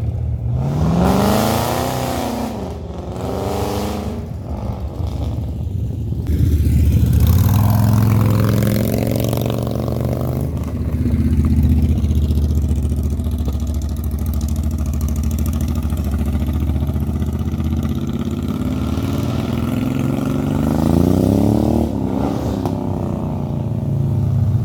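Cruiser motorcycle engines running close by, revving up and back down about a second in and again near the end, with a steady low engine rumble in between.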